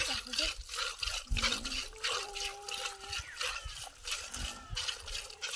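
Cow being milked by hand into a plastic bucket: rhythmic hissing squirts of milk, about two a second, as the hands pull the teats in turn. A short steady pitched sound rises in the background about two seconds in.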